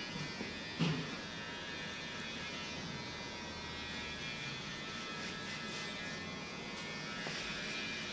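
A steady electrical hum or buzz, with a single soft knock about a second in.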